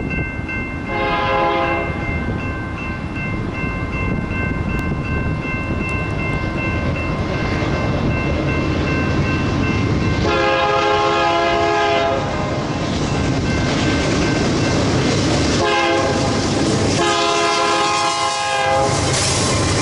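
BNSF diesel locomotive horn sounding the grade-crossing signal as the freight approaches: four blasts, the third short, over the steady ringing of the crossing bell. The diesel engines' rumble grows near the end as the locomotives reach the crossing.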